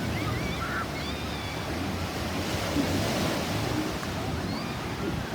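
Steady rush of sea surf and wind buffeting the microphone, with a few faint short high cries about a second in.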